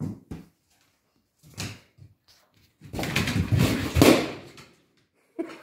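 A small dog playing with an inflated rubber balloon on a hardwood floor: a few short knocks and scuffs, then a longer burst of scuffling about three seconds in.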